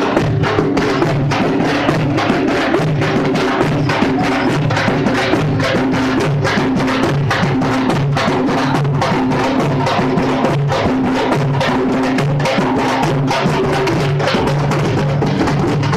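Drums beaten together in a loud, fast, steady rhythm, with sharp strikes several times a second over a low ringing tone.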